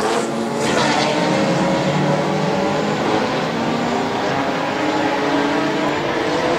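Several race car engines running hard together, their overlapping notes rising and falling in pitch as the cars pass.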